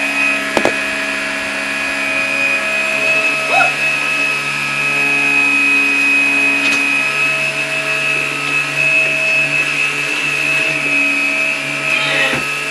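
Upright bagless vacuum cleaner running steadily with a high motor whine as it is pushed over the floor, with a couple of faint clicks.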